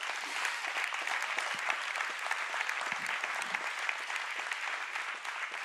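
Congregation applauding: dense, steady clapping from a large audience that dies away near the end.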